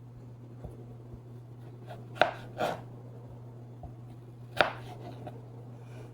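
A large kitchen knife chopping a raw potato: a few slow, separate cuts, the two loudest knocks about two seconds in and near the middle of the second half, over a steady low hum.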